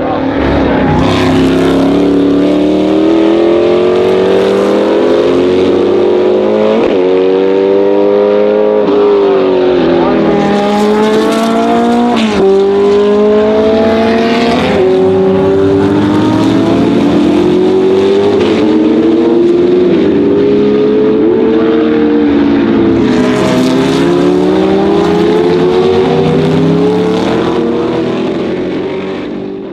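A racing car's engine at full throttle, its revs climbing through the gears again and again with sudden drops at each gear change and quick blips on the downshifts.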